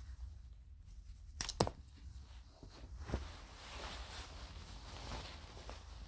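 Scissors snipping at a lab coat to cut a button off: two sharp snips close together about one and a half seconds in and another about three seconds in, followed by the cloth rustling as it is handled.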